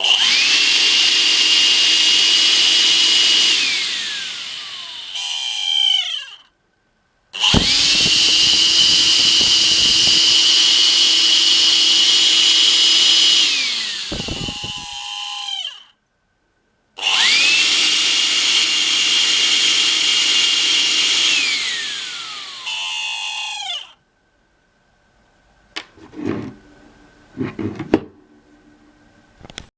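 Makita CL182FD cordless vacuum cleaner's motor switched on three times, each time running with a steady high whine and then winding down with falling pitch after it is switched off. A few faint knocks near the end. The cleaner has developed an abnormal noise after about 200 hours of use.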